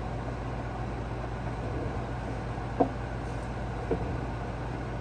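Air conditioner running with a steady hum and rush of air, broken by two short clicks a little past the middle.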